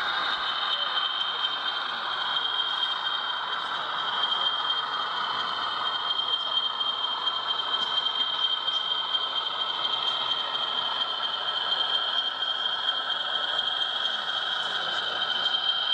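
Model BR Class 40 diesel locomotive running slowly along the layout track: a steady high whine with a light rattling, clattering undertone.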